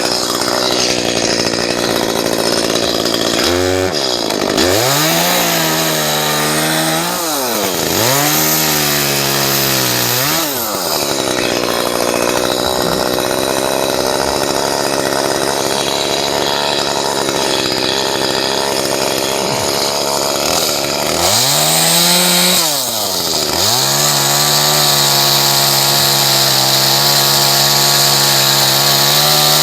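Two-stroke chainsaw cutting tree limbs, held at high revs for long stretches. Its pitch drops toward idle and swings back up to full throttle several times, mostly in the first ten seconds and once more about three quarters of the way through.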